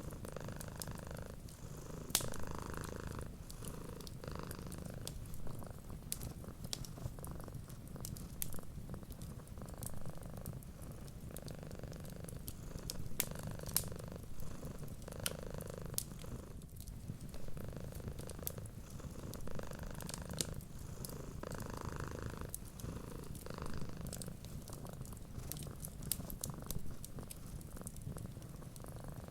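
Cat purring steadily, swelling and easing with each breath every couple of seconds, over the crackle of a wood fire with frequent small sharp pops.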